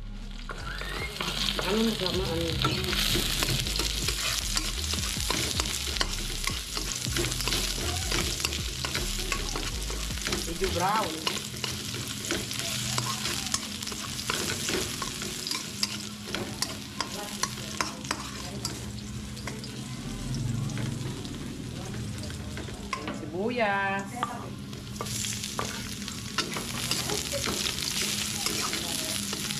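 Sliced garlic sizzling in hot oil in a steel wok, stirred with a metal spatula that scrapes and ticks against the pan. The sizzle builds up a couple of seconds in and keeps going.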